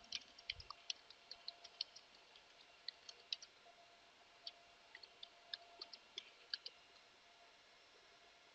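Computer keyboard typing: an irregular run of quick, light key clicks that stops about seven seconds in.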